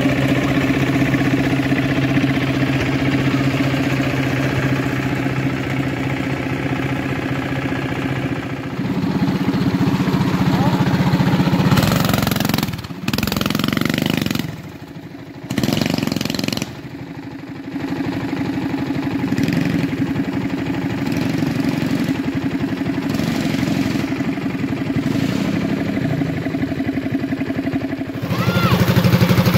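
Small off-road vehicle engine idling steadily close by, its pitch holding fairly even. About halfway through the sound drops away briefly twice, then the steady idle comes back.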